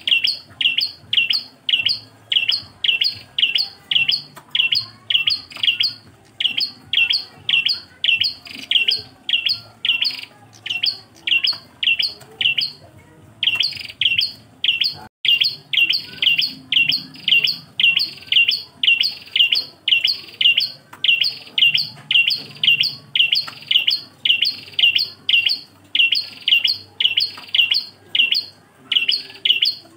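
Prenjak klawu singing one sharp, high call over and over, a little more than twice a second. Each call is a short high note followed by a lower one, and there is a brief break a little before halfway.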